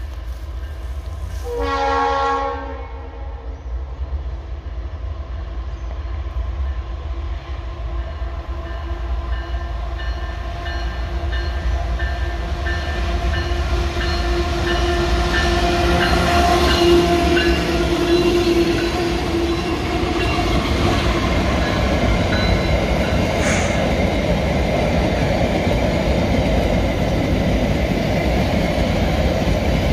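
Diesel-electric freight locomotive in Vale livery sounding its horn once, for about a second, about two seconds in. Its engine then grows louder as it draws near and passes, followed by a long string of ore hopper wagons rolling by with a steady rolling noise.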